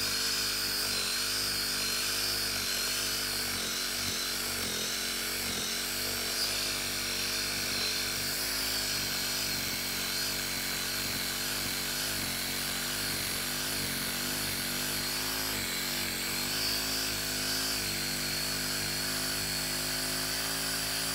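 Reciprocating saw (sawzall) with a wood blade running continuously as it cuts through a tree root in the ground, its motor pitch wavering as the blade loads up in the wood.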